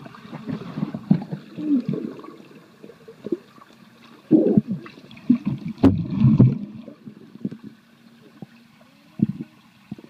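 Muffled underwater sound of a swimmer moving close by: water swirling and gurgling, with irregular thumps and knocks. The sharpest knock comes about six seconds in, and it goes quieter near the end.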